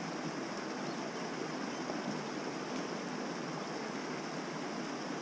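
Steady rushing of a flowing mountain creek, an even hiss with no breaks.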